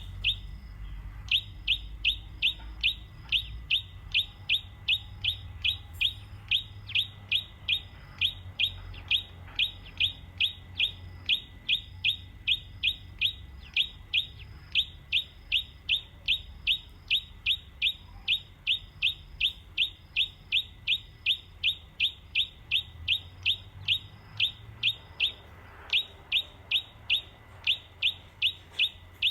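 A bird repeating one short, high, falling chirp over and over at a very even pace, about two to three chirps a second, with a brief break about a second in and another near the end.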